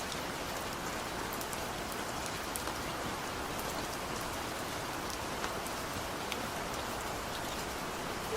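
Steady rain falling, an even hiss with scattered individual drops ticking sharply on top.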